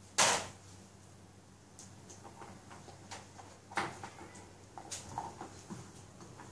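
A dog moving about in and out of a wire crate on a plastic tray, making scattered clicks, scrapes and rustles, with one louder rustling burst just after the start.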